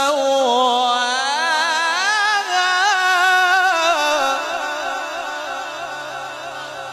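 A male Quran reciter's amplified voice holds a long, wavering melismatic phrase. The phrase climbs in pitch, then fades away over the last few seconds.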